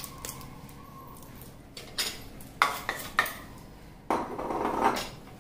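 A spoon clinking against a bowl three times, about half a second apart, then about a second of rustling as powdered sugar goes into the bowl.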